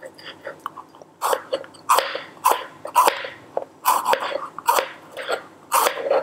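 Kitchen knife slicing a green bell pepper into thin strips on a plastic cutting board: a crisp crunch and tap on the board with each cut, about two cuts a second, starting about a second in.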